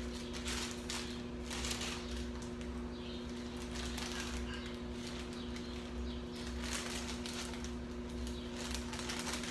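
Parchment paper rustling and crinkling in irregular bursts as a sponge cake is rolled up in it by hand, over a steady low electrical hum.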